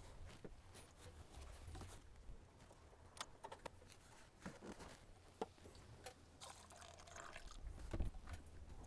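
Faint clicks and knocks of hands handling plastic parts as the radiator filler is capped and a plastic funnel is lifted out, over a low rumble.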